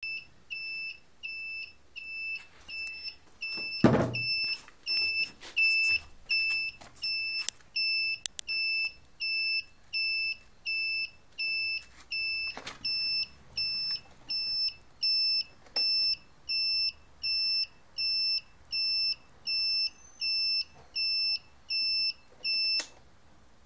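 Scooter turn-signal beeper giving a steady high beep about one and a half times a second, in time with the flashing indicators, stopping near the end. A loud knock about four seconds in, and a softer one about halfway through.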